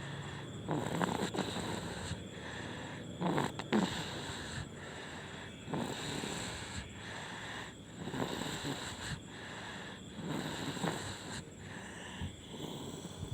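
A sleeping baby snoring, with a breathy snore about every two and a half seconds.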